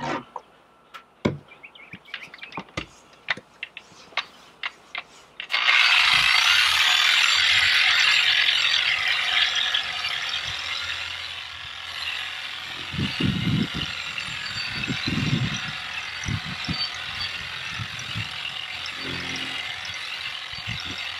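A few scattered clicks and taps, then about five and a half seconds in a Harbor Freight 6-inch variable-speed dual-action polisher with a soft brush attachment starts suddenly and runs steadily, its bristles scrubbing polish into textured fiberglass non-skid deck. A few low knocks come through partway in.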